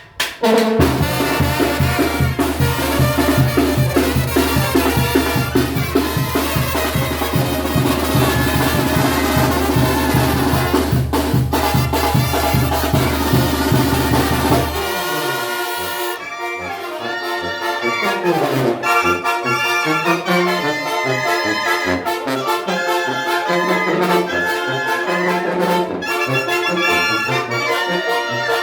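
A Mexican banda (brass band) playing: trumpets and trombones over a low bass with a steady beat. About fifteen seconds in the arrangement changes, the held low bass drops away, and the horns carry a moving melody over shifting bass notes.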